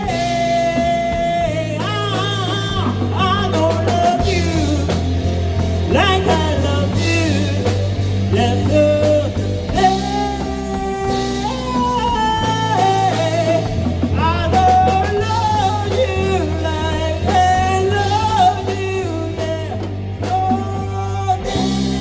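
Rock music: a lead guitar line full of pitch bends and vibrato plays over steady chords and bass.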